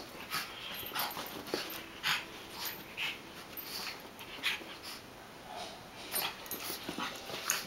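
A pug's short, noisy breaths in irregular bursts, one or two a second, as it bounces around in rough play.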